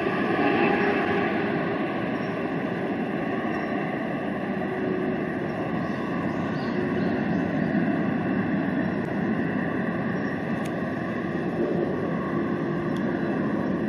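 Boeing 777-300ER on final approach, its two GE90 turbofans making a steady jet engine noise that holds without sudden changes.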